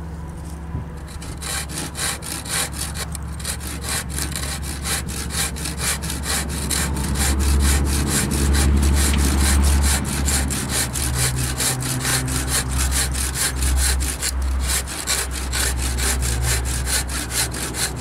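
Handsaw cutting through a wooden 2x4 with quick, even back-and-forth strokes, over a steady low rumble.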